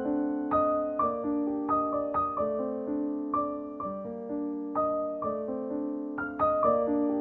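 Background piano music: a slow melody of held notes, a new note struck about every half second to second.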